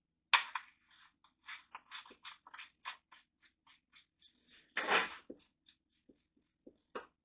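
Rapid rubbing strokes of a rag wiping up after an oil change, about three or four a second, with one louder, longer swipe about five seconds in.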